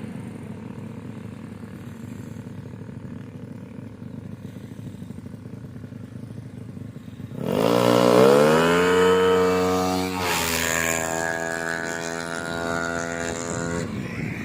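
Yamaha Mio scooter's bored-up 200 cc single-cylinder four-stroke engine running quietly at idle. About seven and a half seconds in it is revved up sharply and held high, drops back a little around ten seconds, and holds steady until it eases off near the end.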